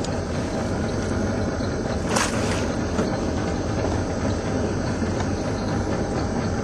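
An engine running steadily with a constant low hum, and a short rushing noise about two seconds in.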